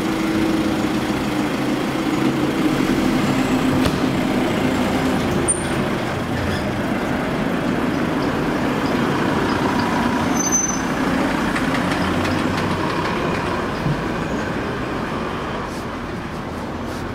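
Engine of a small box truck running close by as it drives slowly away along a paved street, the sound easing off gradually over the last few seconds.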